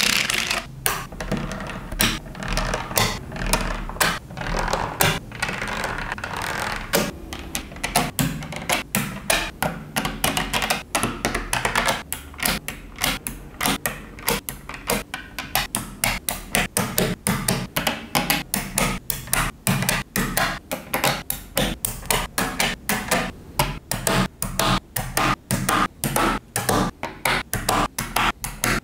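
Small magnetic balls clicking as they snap together and are pressed into place, several sharp clicks a second without a break.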